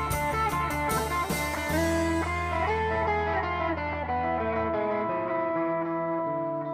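Live band music led by an electric guitar playing held melodic notes over a low bass line. Sharp percussion hits are heard only in the first second or so, and the bass drops out about five seconds in.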